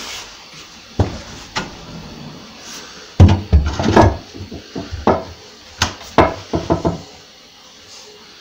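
Irregular wooden knocks and thuds as a timber cupboard front frame is handled and shifted into the alcove for a trial fit, the heaviest thuds coming in a cluster about three to four seconds in.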